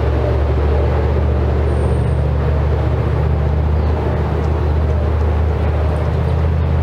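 Steady low hum of a running motor, unchanging in pitch.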